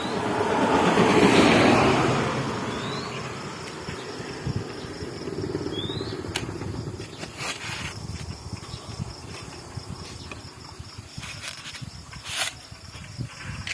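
A vehicle passing, its noise rising and then fading over the first few seconds, over steady insect chirping, with a few scattered clicks.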